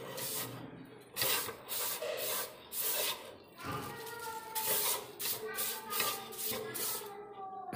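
A wad of paper tissue rubbed around the inside of an empty non-stick wok, wiping it out after deep-frying: a run of dry scrubbing strokes, roughly two a second.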